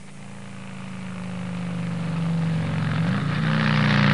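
An engine running, growing steadily louder, with its pitch stepping up a little about three seconds in.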